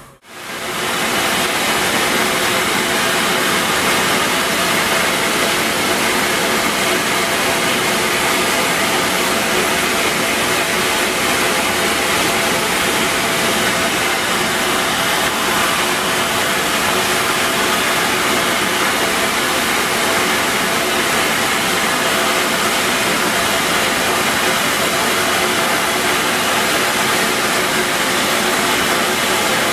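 Steady rushing noise of a 1925 Baldwin steam train running along, heard from an open-sided passenger car just behind the locomotive.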